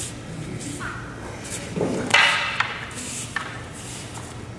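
Wooden kobudo staffs knocking together a few times in a weapons exchange, with the loudest burst about two seconds in.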